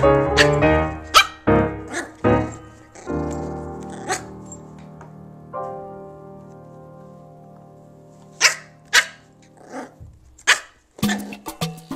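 Yorkie puppy barking: several short, single barks spaced a second or more apart, over piano music with held notes. A faster Latin dance beat starts near the end.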